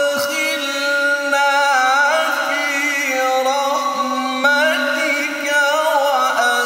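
A male qari reciting the Qur'an in melodic tilawah style. He draws out one long, ornamented vowel whose pitch winds up and down through turns, without a break for breath.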